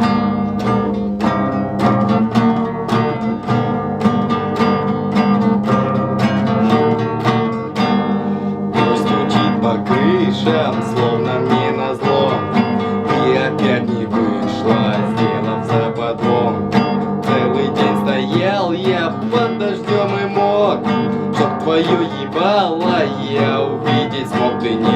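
Acoustic guitar strummed in a steady rhythm, the instrumental intro to a song; about nine seconds in, a wavering melody line joins over the strumming.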